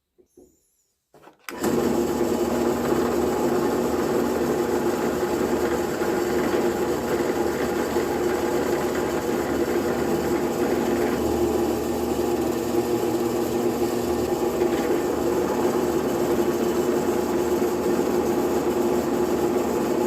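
Ryobi benchtop drill press switched on about a second and a half in, its motor running steadily with a strong hum while the bit drills a hole in a wooden handle, then switched off right at the end and starting to wind down.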